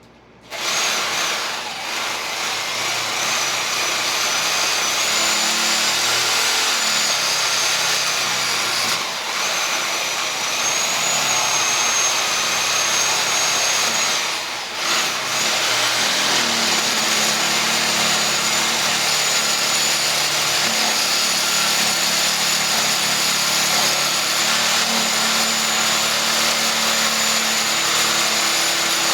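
Reciprocating saw (Sawzall) running and shaving wood. It starts suddenly, runs loud and steady with a high whine, and eases off briefly three times, about 2, 9 and 15 seconds in.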